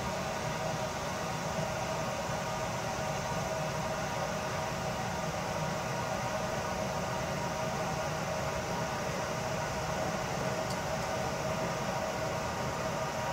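Steady mechanical whir with a constant hum and hiss, unchanging throughout; the passing train is not heard distinctly.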